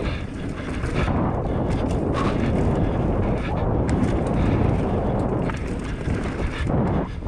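Wind buffeting the action camera's microphone while an enduro mountain bike's knobby tyres roll over a dirt and gravel trail, with scattered clicks and rattles from the bike.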